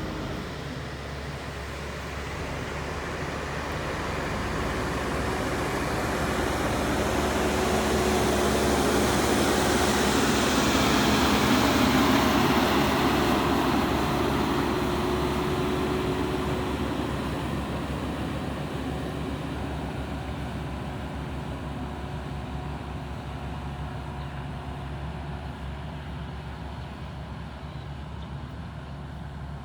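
JCB 3DX backhoe loader's diesel engine running steadily. A broad rush of vehicle noise builds to a peak about twelve seconds in and then fades, as if a vehicle passes close.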